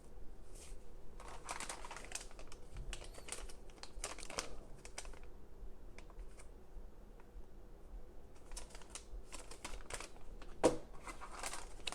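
A cardboard test-kit box and its plastic-wrapped contents being handled: bursts of rustling, crinkling and light clicks, with a soft knock near the end as something is set down.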